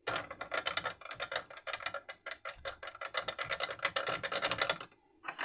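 Rapid, irregular clicking and rattling of small metal parts being worked by hand on an air rifle's trigger mechanism, stopping shortly before the end.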